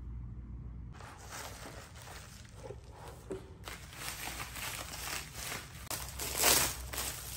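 Bubble wrap and plastic packaging crinkling and rustling as hands unwrap a plate, in irregular bursts that are loudest about six seconds in. A low hum runs under the first second.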